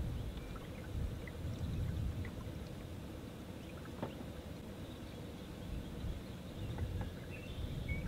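Water lapping and trickling against a kayak's hull as it glides over calm water, with a faint low rumble underneath.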